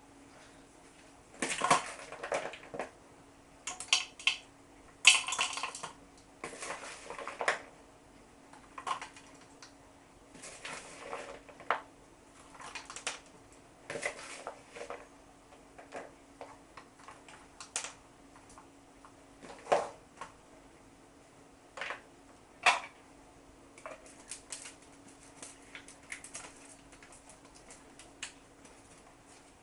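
Intermittent clatter, knocks and clinks of kitchen utensils and dishes being handled, with a faint steady hum underneath.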